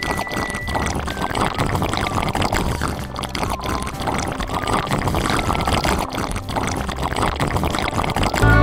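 Turkey adobo with potatoes sizzling in a wok, a steady dense crackle. A short whistle-like tone sounds right at the start.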